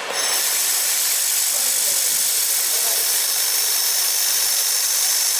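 UMW 1500 W air-cooled handheld laser welder welding stainless steel: a steady, even hiss, mostly the shielding gas rushing from the welding nozzle, switches on abruptly at the start.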